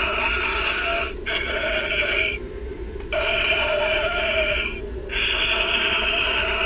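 Talking mummy animatronic's speaker playing drawn-out, held vocal sounds in long stretches broken by short pauses.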